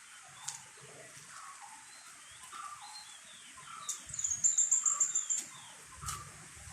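Songbirds chirping, with short falling calls repeated throughout and a fast high trill about four seconds in, the loudest part. A few sharp clicks, and a low wind rumble near the end.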